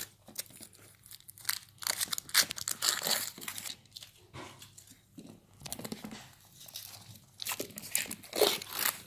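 Foil wrapper of a Kinder Surprise Maxi chocolate egg being torn and peeled off by hand: irregular crinkling and tearing, in a busy stretch about two seconds in and again near the end.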